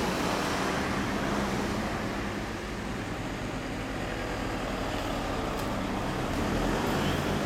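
Yamaha Cygnus-X scooter's single-cylinder four-stroke engine idling steadily through a Josho1 Hyper Racing aftermarket exhaust.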